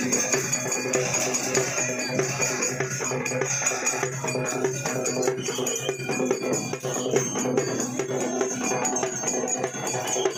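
Music with percussion and held tones that runs steadily throughout.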